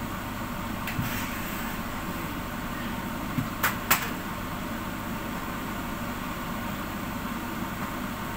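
Steady mechanical hum with an even background hiss. There is a soft knock about a second in, and a couple of sharp clicks in the middle.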